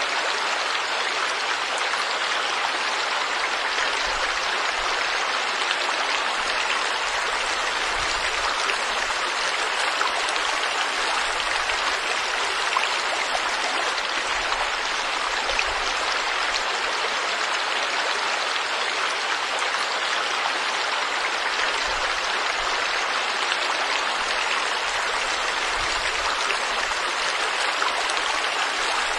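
Forest stream running steadily, an even rush of flowing water.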